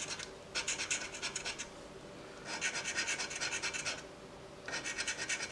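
A gold coin scratching the coating off a scratch-off lottery ticket in three bursts of quick strokes, each about a second long, with short pauses between.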